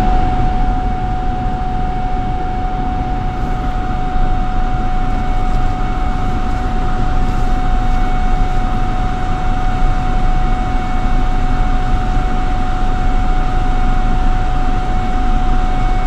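Car cabin noise while climbing a steep gravel forest road: a steady low rumble from the engine and tyres, with a thin, steady high-pitched tone throughout.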